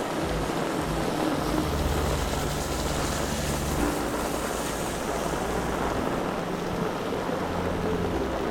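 Heavy rain and strong wind on the microphone, a steady rushing hiss, with the low hum of a vehicle engine on the street, strongest a couple of seconds in.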